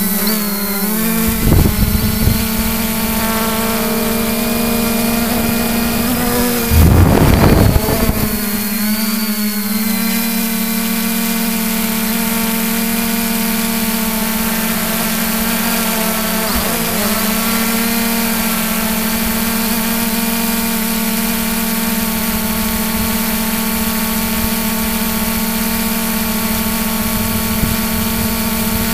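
Camera drone's electric motors and propellers humming steadily in flight, recorded on board. The pitch wavers a few times, and about seven seconds in a louder rushing noise lasts about a second.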